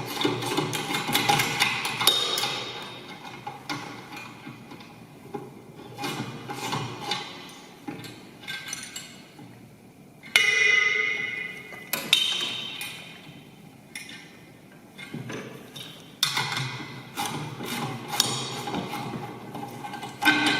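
Irregular metal clinks and knocks from spanners and a steel jack being handled, one ringing clink about ten seconds in. Background music plays underneath.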